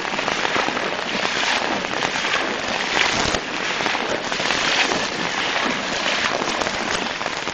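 Muddy floodwater rushing across a road, a steady dense water noise with a fine crackle.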